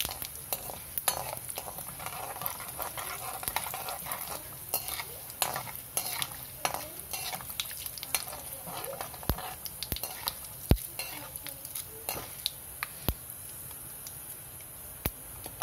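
Hot oil sizzling in a kadai with mustard seeds, cumin, urad dal and asafoetida, the tempering (tadka) stage of the dish. A metal spoon stirs and scrapes against the pan, with scattered sharp clicks throughout.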